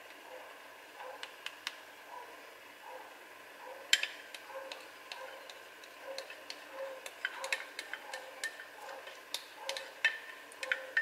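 Plastic spatula clicking and scraping against a ceramic bowl as beaten egg is scraped out into a frying pan: scattered sharp ticks, one louder click about four seconds in and quicker clicks near the end.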